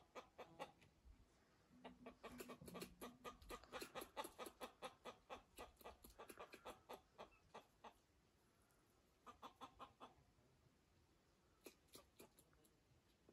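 Chicken clucking faintly in rapid runs of short clucks, about five a second, the longest run in the first half and two shorter bouts later.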